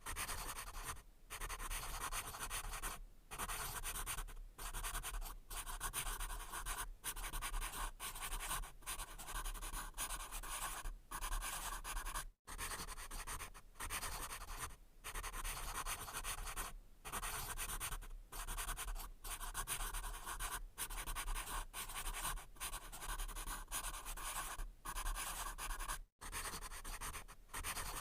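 Pencil writing on paper: a continuous dry scratching of graphite on paper, in short strokes broken by brief pauses every second or so, with two short full stops partway through.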